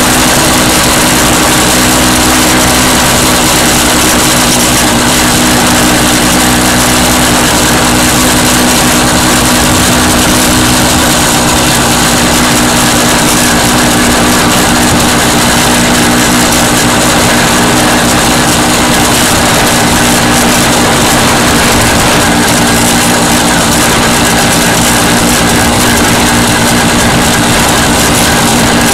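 MZ motorcycle engine running at a steady pace as the bike rides along, with a constant rushing noise over it.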